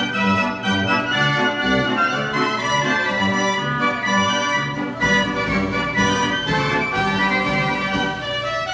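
Limonaire Frères band organ playing a tune: its wooden pipes sound a sustained melody and chords over a regular bass beat about twice a second.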